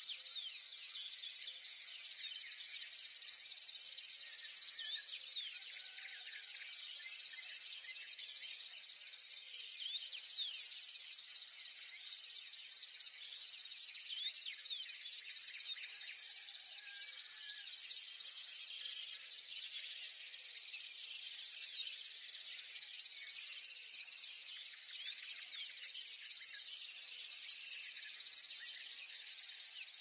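A grass warbler (Locustella) singing its reeling song: one continuous, very rapid high trill held without a break. Faint short chirps from other birds sound underneath.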